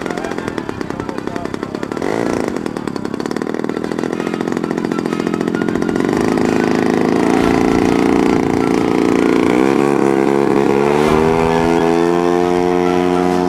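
Model aircraft petrol engine, a 50cc Desert Aircraft two-stroke driving a four-blade propeller, running on the ground at lower throttle. About ten seconds in it revs up to a higher, steady pitch as it is opened up to take-off power.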